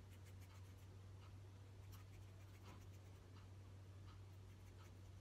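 Faint, irregular snips and scratches of scissors cutting through lengths of wig hair, over a steady low hum.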